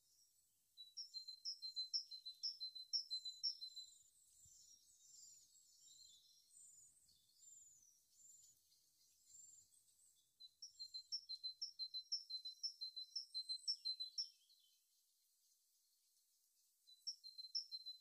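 A fledgling songbird calling: high, thin chirps repeated about four times a second in runs, with softer, varied twittering between the runs and a short quiet gap near the end.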